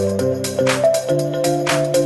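Background music with a steady beat, about two hits a second, over a moving bass line and melodic notes.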